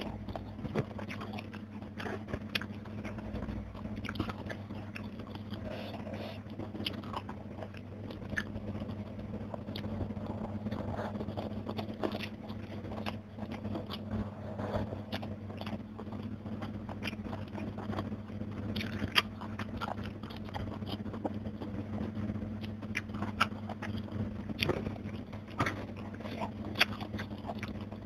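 Close-miked mouth sounds of eating by hand: chewing and crunching crispy fried fish and rice, with many small crackly clicks and the wet squish of fingers working the food.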